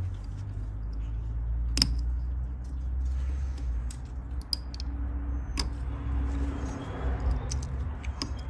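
Small hand tool clicking and tapping against a stuck plastic ignition coil connector as it is pried at, with a sharp click about two seconds in and another a little past five seconds, over a steady low hum.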